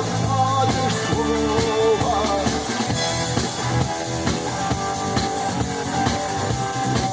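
Live rock band playing an instrumental passage: an electric guitar melody over drums and bass.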